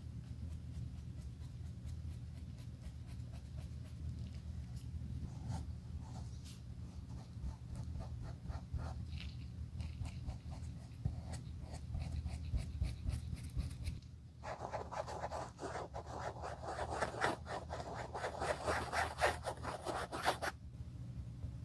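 A metal spatula and a small brush scrape and dab black repair paste into the leather of a loafer's toe, faint scattered scratches over a low steady hum. About two-thirds of the way in, a sponge rubs quickly back and forth over the leather for about six seconds, the loudest sound, then stops abruptly.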